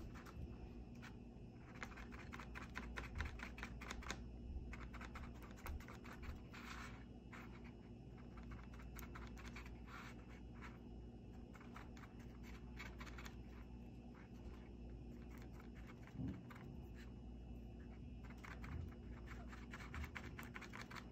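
Paintbrush dabbing and stroking paint onto a cut-up plastic water bottle: faint, irregular small ticks and scratches in loose clusters, with the bottle's thin plastic handled and shifted between strokes.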